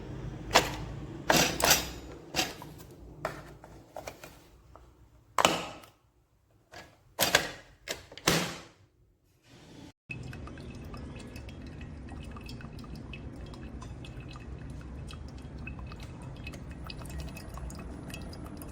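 Kitchen handling around a single-serve coffee maker: a run of sharp knocks and clinks with liquid dripping and pouring. About ten seconds in the sound cuts to a steady hiss with small ticks and a faint thin tone.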